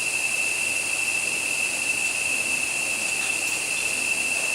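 Rainforest insect chorus: a steady high-pitched drone over a constant hiss, unchanging throughout.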